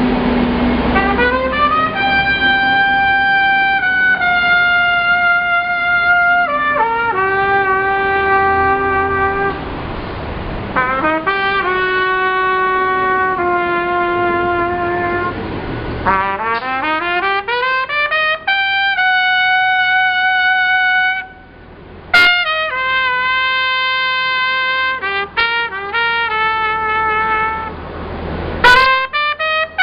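A brass horn played solo: a melody of long held notes, each reached by a quick upward run. It breaks off briefly about two-thirds of the way through, and two sharp knocks are heard near the end.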